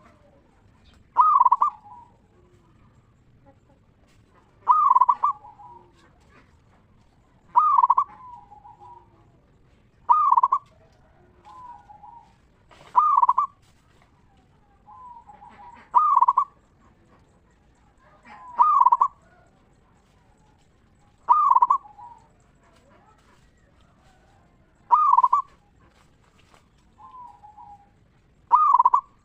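Zebra dove (perkutut) cooing song: about ten short, loud phrases repeating roughly every three seconds, each ending in a softer trailing note.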